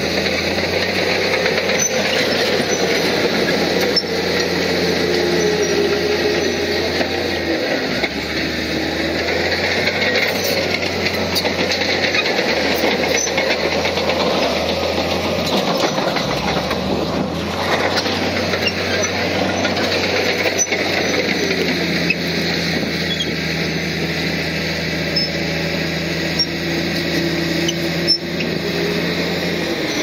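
Heavy diesel earthmoving machinery running: a steady engine drone whose pitch rises and falls several times, as under changing load.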